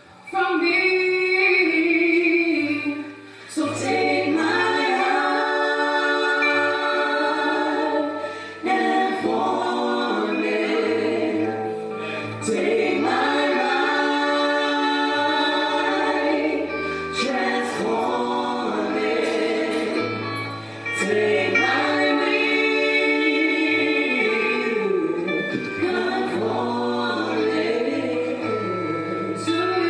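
Gospel choir singing with instrumental accompaniment and a bass line, in sustained phrases with brief pauses between them.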